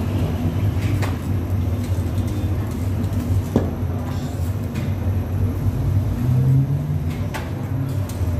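Steady low hum of bakery machinery, with a few light knocks and taps as dough is pressed and patted out on a seeded metal tray.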